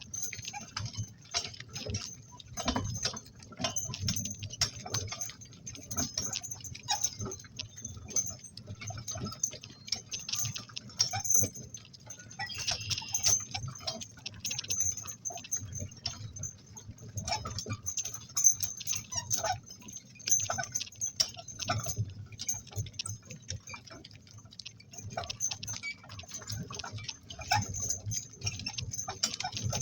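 Metal harness hardware and cart fittings jingling and clinking irregularly as a pair of donkeys pull a work cart, over a low steady rumble.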